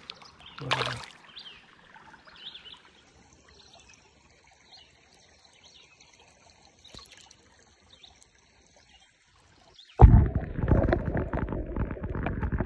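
Small creek water trickling and splashing quietly. About ten seconds in, a sudden loud, rumbling rush of noise takes over.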